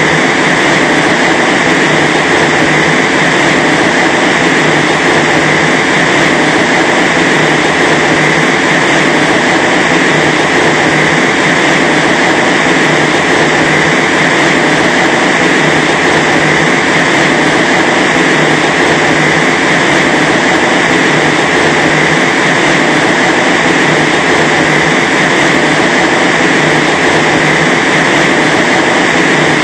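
Loud, steady rush of high-speed air from a wind-test blower driving against a fence panel, with no let-up or change in strength.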